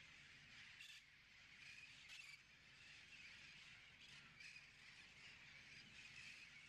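Near silence: faint outdoor ambience with a few distant bird calls.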